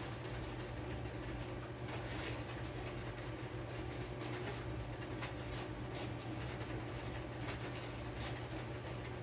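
A steady low hum with an even background hiss, and a few faint, brief scratchy ticks scattered through it.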